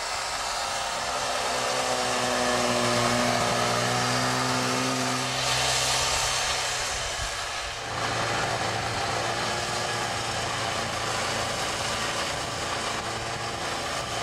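Snowmobile engine running steadily as the machine drives over snow, its note rising slightly and holding. About eight seconds in the sound changes to the engine heard from on board while riding along.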